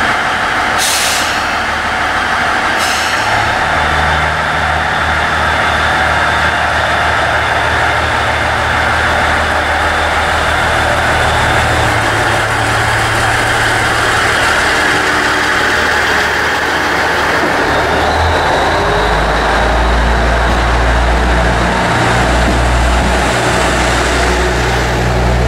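KiHa 110 series diesel railcar standing at the platform with its diesel engine idling in a steady low drone. There are two short hisses of air about one and three seconds in, and the engine's drone grows deeper and stronger about three quarters of the way through.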